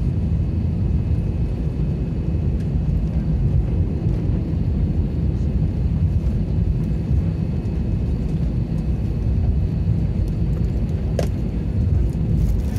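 Airliner cabin noise while taxiing: the jet engines at idle give a steady low rumble with a faint high whine. A single sharp click comes about eleven seconds in.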